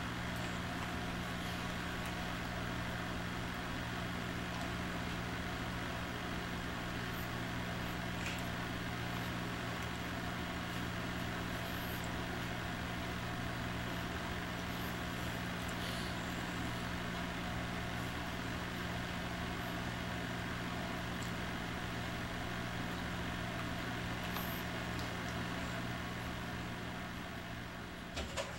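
Steady low hum and hiss with no voices, with a few faint ticks. Near the end it fades slightly and there are a couple of small clicks.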